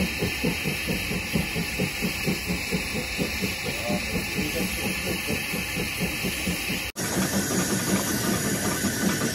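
DFB HG 4/4 704 rack steam locomotive working along the line, a rapid, even beat of exhaust over a hiss of steam. About seven seconds in the sound cuts to a steadier hiss and running noise heard from aboard the moving locomotive.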